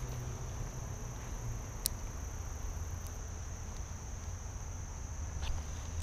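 A steady, high-pitched insect chorus drones on unbroken, over a low rumble. A single short click comes about two seconds in.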